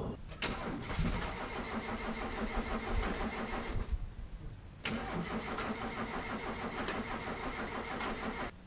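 A 1982 Toyota Hilux engine cranking on its starter motor in two attempts of about three and a half seconds each. Each attempt begins with a click and has a steady, even churning rhythm, and the second one cuts off suddenly.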